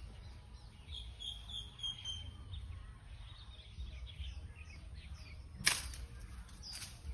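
Faint bird chirps, then about six seconds in a sharp swishing knock as a long pole is thrust up into a star fruit tree and strikes the branches, followed by a weaker knock near the end.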